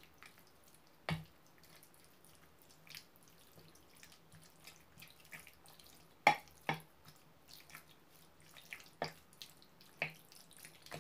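A wooden spoon stirring raw chicken in a soy sauce and flour marinade in a glass bowl: soft wet clicks and squelches, broken by a handful of sharp taps of the spoon against the glass, the loudest about six seconds in.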